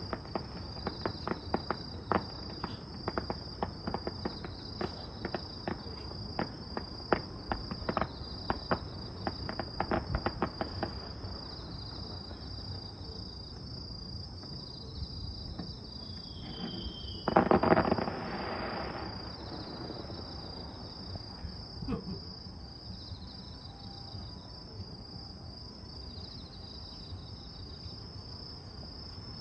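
Crickets chirping in a steady, pulsing high trill. During the first ten seconds or so there are many sharp, irregular crackles, and about 17 seconds in a short falling whistle leads into a brief loud hissing burst.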